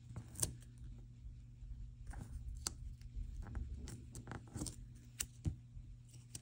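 Scissors snipping a paper planner sticker label to size: several faint, separate snips and clicks with a little paper handling between them.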